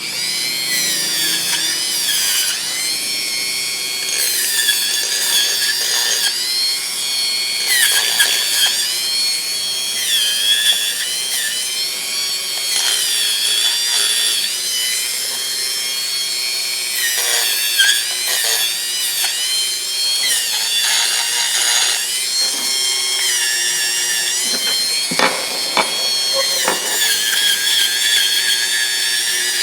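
Rotary tool spinning a plastic fiber abrasive wheel against the inside of steel linesman pliers, cleaning off dirt and old finish. A high-pitched whine that dips in pitch briefly every few seconds, with a few short scraping clicks.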